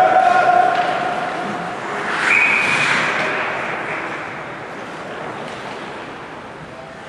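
Ice hockey arena: a long steady horn tone dies away about two seconds in, then a referee's whistle blows once, briefly, over the hum and crowd noise of the rink.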